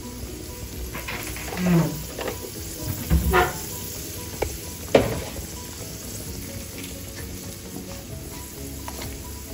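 Hot oil sizzling in a kadai as a tempering of mustard seeds, chana dal, urad dal and cumin fries. A few louder short sounds come about two, three and five seconds in.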